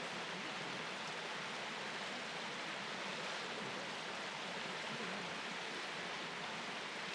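Steady, even rushing noise that does not change.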